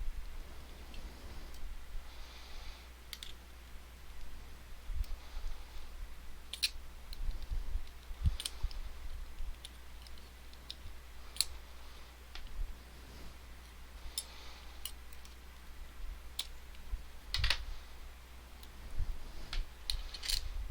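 Small metal tool clicking and scraping against a lock's body while prying a stubborn retaining clip off the back: scattered sharp clicks a second or few apart, with faint scratching between.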